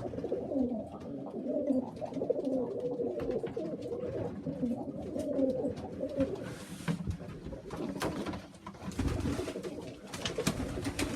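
Several pigeons in a loft cooing over one another without a break, with a few short clicks and knocks among them.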